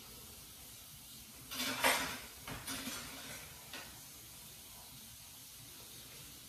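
Handling noises as a new washer drum bearing is worked over by hand with grease: a few short scrapes and light clatters, the loudest a little under two seconds in, then only faint hiss.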